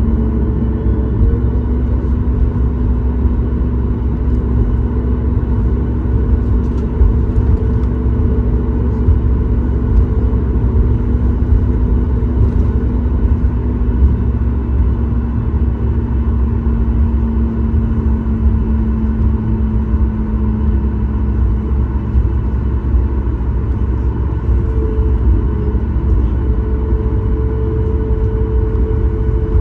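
Cabin noise of a Boeing 737 MAX 8 with its CFM LEAP-1B engines running: a steady low rumble with a couple of humming tones. The lower hum fades out about two-thirds of the way through, and a higher one comes in near the end.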